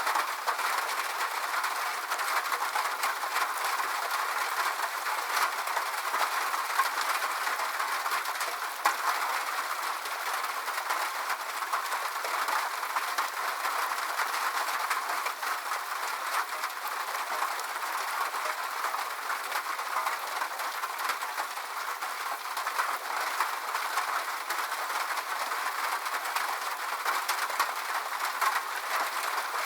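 Steady rain falling, a dense patter of drops ticking over an even hiss, with no deep rumble beneath it.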